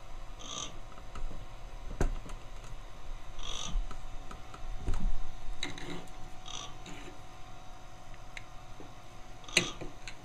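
Homemade electromagnetic resonance motor running on pulses from a pulse width modulator: a steady hum and faint whine with scattered clicks and light knocks, a sharp click about two seconds in, a low knock near the middle and another sharp click near the end.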